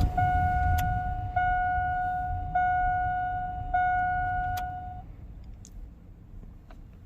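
Dashboard warning chime of a 2003 Chevy S10, a steady ding that re-strikes about every second and stops about five seconds in, over the low rush of the cab blower fan running on a low setting with the engine off, now working again on its lower speeds after a new blower motor resistor.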